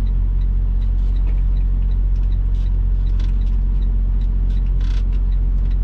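Semi-truck diesel engine idling steadily, heard from inside the cab, with a faint regular ticking about three times a second and a few light knocks and rattles.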